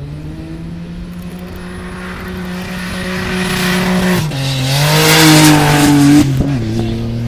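Nissan 350Z drift car's engine held at high revs with its rear tyres squealing in a smoky drift. The tyre noise builds to a loud peak while the engine note climbs, then both drop away suddenly a little after six seconds in.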